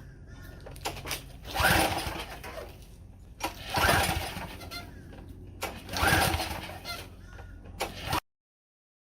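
Briggs & Stratton engine on a Craftsman pressure washer being pull-started three times, each pull about two seconds apart. The engine cranks without catching and running, the sign of an engine that won't start.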